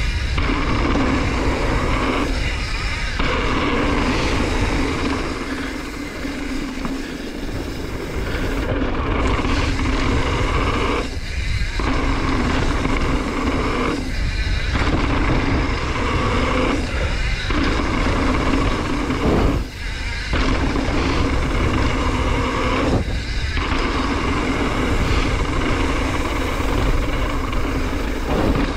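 Mountain bike running down a dirt bike-park trail: steady wind on the microphone and tyre rumble, broken by several brief lulls.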